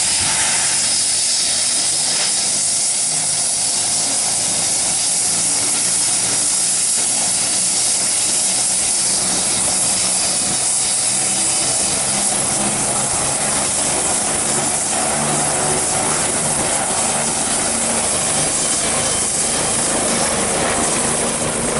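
Helicopter turbine engine running at ground idle on the pad: a loud, steady hissing whine that does not change.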